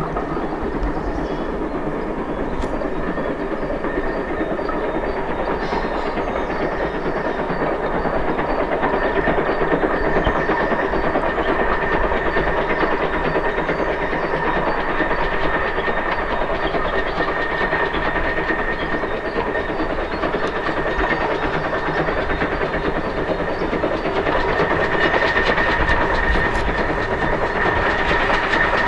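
GWR 14xx-class steam tank engine hauling an autocoach as it approaches on a curve. Its running sound grows slowly louder, with a steady high-pitched ring over it.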